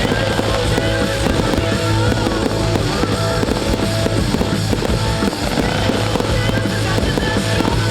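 Fireworks banging and crackling in a dense, continuous barrage, mixed with a music track.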